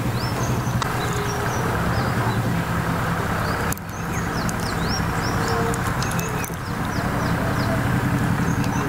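Small birds chirping over a steady low hum, with a short dip in the sound about four seconds in.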